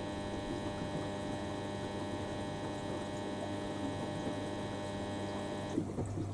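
Washing machine drain pump humming steadily as the machine drains before its spin. The higher part of the hum cuts off suddenly near the end, leaving a lower steady hum.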